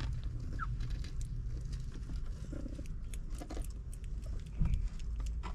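Mother cat purring, a steady low rumble, while her newborn kittens nurse, with small clicks and a short high squeak from the kittens. A soft bump comes near the end.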